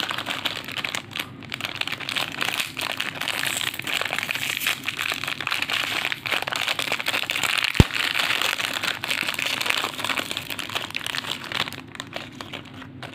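Foil-lined plastic biscuit wrapper crinkling as it is handled and torn open, with one sharp snap about eight seconds in; the crinkling dies away near the end.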